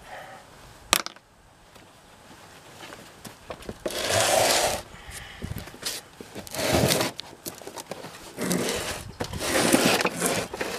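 A portable inverter generator being shifted and swivelled by hand on a truck-bed mat: a sharp click about a second in, then four short scraping bursts.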